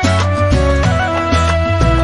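Background music: an instrumental melody over a pulsing bass beat.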